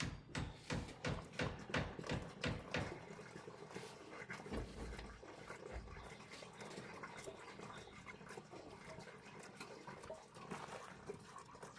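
Liquid being poured, with a quick run of short glugging pulses, about three a second, for the first few seconds, then a fainter steady pour.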